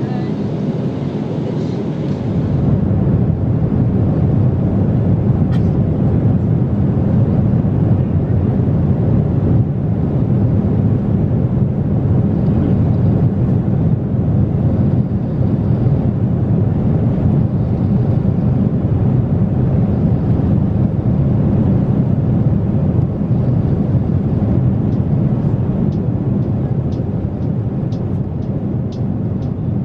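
Steady low roar of a Boeing 777-300ER's economy cabin in cruise: engine and airflow noise heard from inside the cabin. A few faint ticks come near the end.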